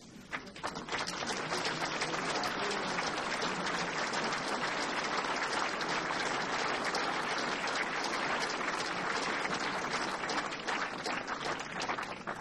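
A large crowd applauding. The clapping starts about half a second in, swells quickly to a steady dense patter, and dies away near the end.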